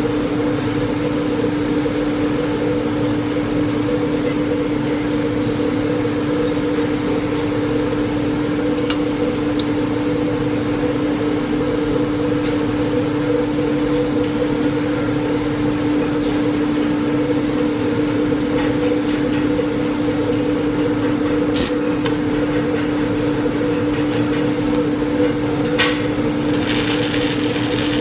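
Arc welding: a steady electric hum under the continuous crackling hiss of the welding arc. The hiss thins out for several seconds near the end, then comes back strongly.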